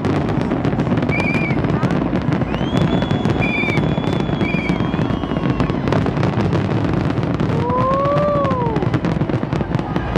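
Aerial fireworks display: a dense, continuous crackle of rapid pops and bangs over a heavy low rumble, with a few high whistling tones through it.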